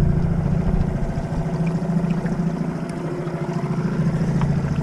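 Small outboard motor on a dinghy running steadily under way, its note easing a little midway and then picking up again.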